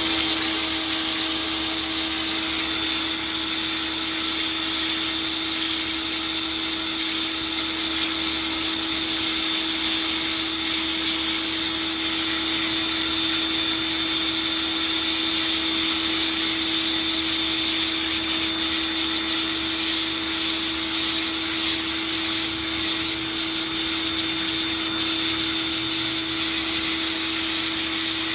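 HGTV Home 1750 PSI pressure washer running continuously. Its motor-driven pump hums at a steady pitch under the loud hiss of the water jet spraying onto outdoor carpet.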